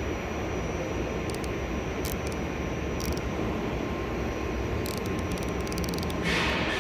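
Steady low rumble of background machinery or ventilation, with a few faint light clicks and a quick run of rapid ticks about five seconds in.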